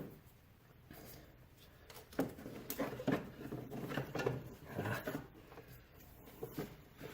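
Faint handling noises as a rubber serpentine belt is worked by hand around the engine's idler pulley: irregular light knocks, scuffs and rubbing, starting about two seconds in.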